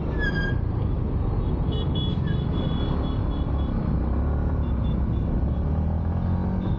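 Yamaha MT-15 motorcycle's single-cylinder engine running at low speed in city traffic, a steady low rumble mixed with road noise and wind on the microphone.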